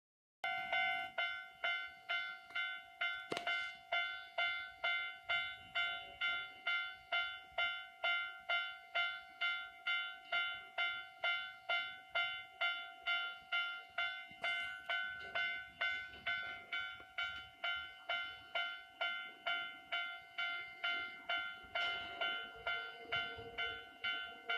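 Japanese railway level-crossing alarm ringing, an evenly repeated electronic ding about twice a second. Near the end the rumble of an approaching train rises under it.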